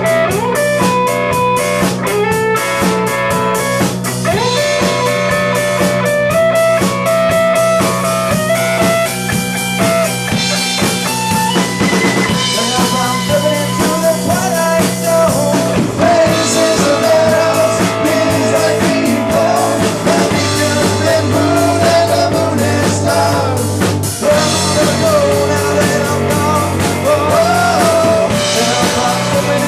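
Small rock band playing live: an electric guitar lead with held, bending notes over bass guitar and drums.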